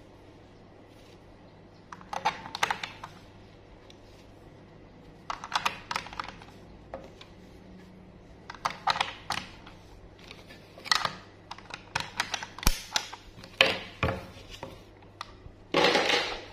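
AA batteries being pushed into a plastic toy's battery compartment against its spring contacts, in separate clusters of sharp plastic-and-metal clicks and clatter every few seconds. Near the end the plastic battery cover is fitted back on.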